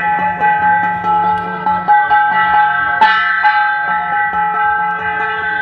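Instrumental music: held notes over a quick, steady percussion beat.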